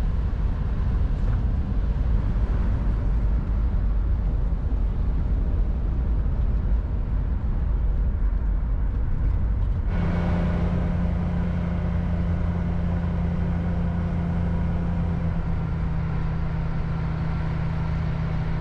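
1962 Chevrolet Greenbrier van under way, its air-cooled flat-six engine running steadily under road noise. About ten seconds in, the sound changes abruptly to a steadier engine hum with a clear low drone.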